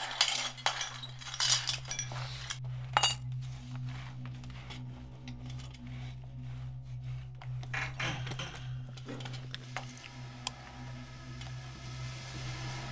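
Metal hand tools clinking and tapping against metal in scattered sharp knocks, busiest in the first few seconds, over a steady low hum. A band of steady higher tones comes in near the end.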